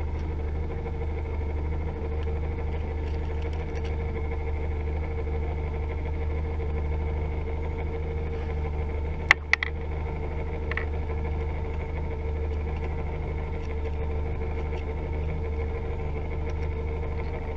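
Boat motor running steadily at low speed, a constant low hum with a steady whine over it. Two sharp clicks about nine seconds in.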